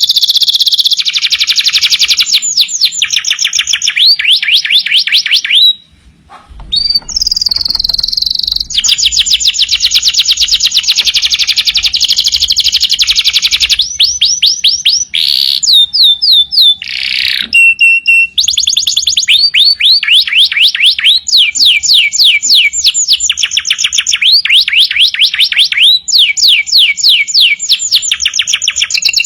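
Domestic canary in full song, delivering long, rapid trills of repeated notes one phrase after another, with a brief pause about six seconds in.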